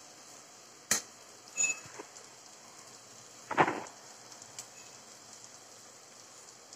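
A few sharp knocks and a short metallic clink from cookware being handled, the loudest knock about three and a half seconds in, over a faint steady hiss.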